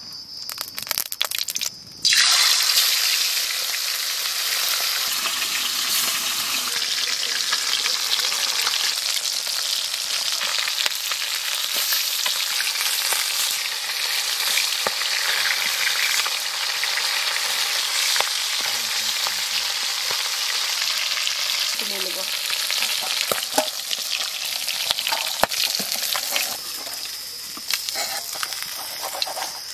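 Marinated rohu fish pieces sizzling and frying in hot mustard oil in a kadai, the sizzle starting abruptly about two seconds in as they go into the oil, with a spatula scraping and turning them.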